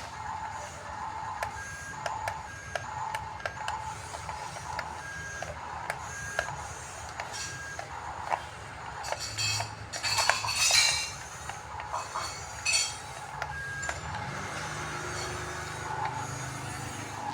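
RC model bulldozer at work: a repeating mechanical pulse with scattered clicks from its drive and tracks. Louder bursts of scraping and clatter come about ten seconds in and again near thirteen seconds, and a low motor hum sets in about fourteen seconds in.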